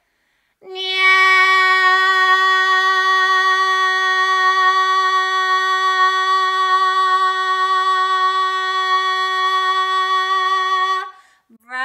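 A woman singing one long note on a steady pitch for about ten seconds, sung with vocal twang: loud and ringing with the twang's ping, but not harsh.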